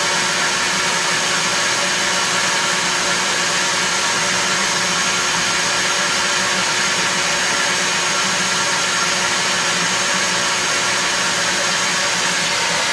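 A small motor-driven machine running steadily at constant speed: a loud, even rush of noise over a fixed hum that never changes.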